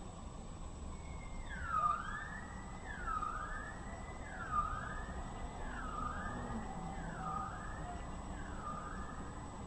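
Emergency vehicle siren wailing, starting about a second in. Its pitch sweeps down and back up roughly every second and a half, over a low steady hum of street noise.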